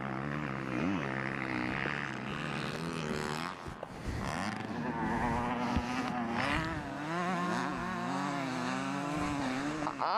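Yamaha YZ250 two-stroke single-cylinder motocross engine on the move, heard from the rider's helmet camera. The engine note climbs and falls repeatedly with the throttle, drops off briefly about three and a half seconds in, then picks up again.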